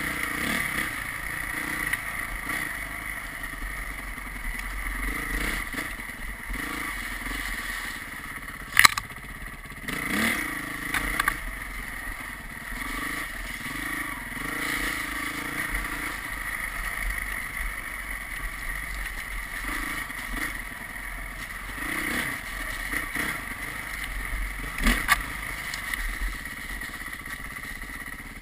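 Vehicle engine running on the move over a snowy road, its note rising and falling with the throttle over steady road and wind noise. Two sharp knocks come through, one about nine seconds in and one near the end.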